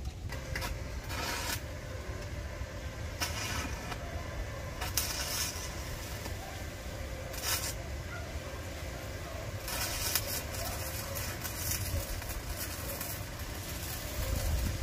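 Steady low rumble of wind buffeting the microphone, with several short bursts of hiss scattered through it, the longest about ten seconds in.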